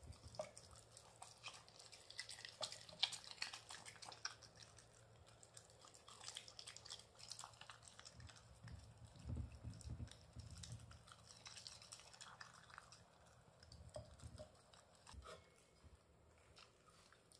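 A Shiba Inu eating soft food from a stainless-steel bowl: quiet wet chewing and licking with many quick clicks, and a few low thuds about halfway through.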